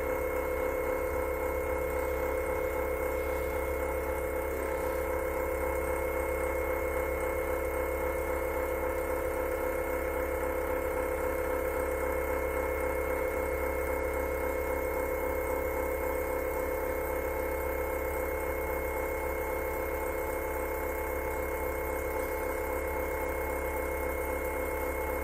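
A steady hum made of several constant tones, with an even level and nothing sudden standing out.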